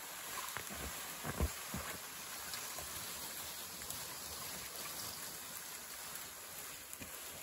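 A long dead tree trunk dragged over the forest floor and through branches: a steady scraping and rustling, with a couple of knocks about a second and a half in.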